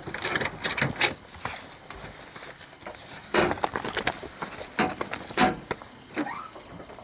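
Coonhounds being let out of a pickup's dog box and led off on leashes: scattered clinks, thumps and scuffs of paws, collars and leash hardware, with footsteps.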